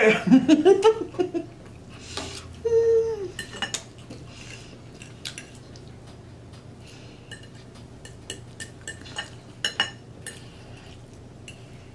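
A metal fork clinking and scraping against a dinner plate in scattered light strikes, the sharpest one near the end. It opens with a drawn-out, gliding vocal exclamation of enjoyment, and a short hummed note follows about three seconds in.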